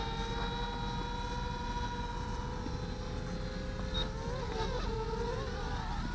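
Vifly R220 M2 FPV racing quadcopter's 2205 2600KV brushless motors whining in flight, a steady pitched whine that rises slowly, then wavers up and down from about four seconds in as the motors speed up and slow down. A short high beep about four seconds in.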